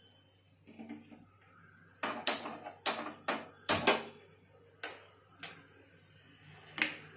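Gas stove's built-in igniter clicking as the burner knob is pushed and turned, sparking the left burner alight. About nine sharp clicks come at irregular spacing, starting about two seconds in.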